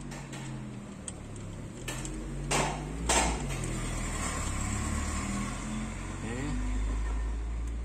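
Hands working at a nut behind a car's plastic lower dash panel: rustling and scraping, with two louder brushes about two and a half and three seconds in, over a low steady hum.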